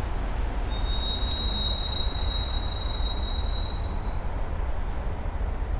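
Class 1200 electric locomotive rolling slowly toward the listener over a steady low rumble, with a high wheel squeal held for about three seconds from just under a second in.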